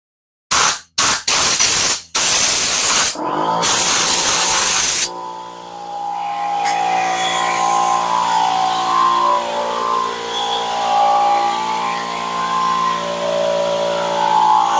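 Several short blasts of compressed air from a blow gun, then a longer blast lasting about two seconds. About five seconds in, an air compressor starts and runs steadily, loud enough that it is soon switched off.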